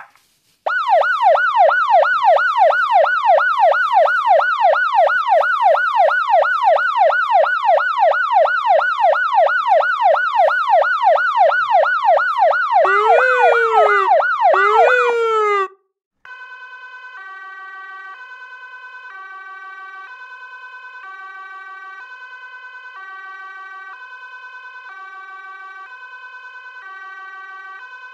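Electronic toy emergency-vehicle siren sounds: a loud wail sweeping rapidly up and down about three times a second, then two slower falling wails. After a brief gap, a quieter siren of alternating stepped electronic tones.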